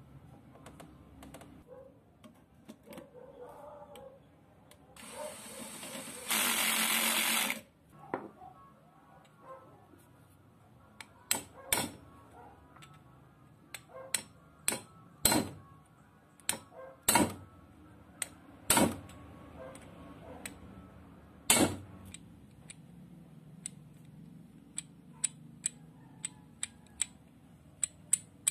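Impact drill gearbox parts being handled and fitted by hand. About five seconds in there is a hiss of some two and a half seconds, louder in its second half. After that comes a string of sharp metallic clicks and knocks, irregularly spaced, a few of them loud.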